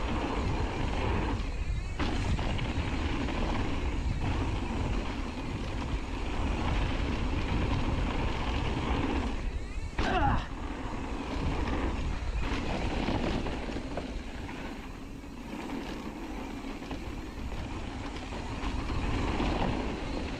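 Mountain bike rolling fast down a packed-dirt trail: a steady rush of tyre noise and wind buffeting the camera's microphone with a low rumble, and the bike rattling over bumps. There is a sharper knock about halfway through.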